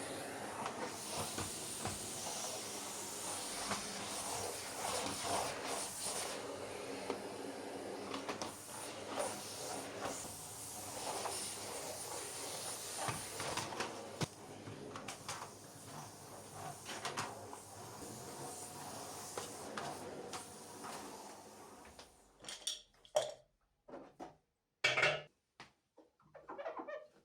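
Household clatter of dishes and cupboard doors over a steady hiss; about 22 seconds in the hiss stops, leaving a few separate knocks.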